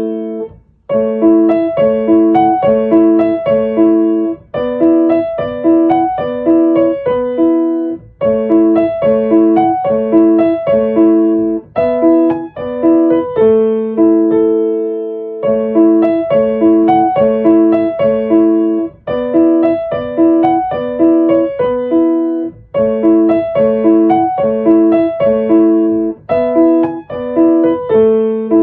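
Background piano music: a bright repeated melodic figure of struck notes over a bouncing accompaniment.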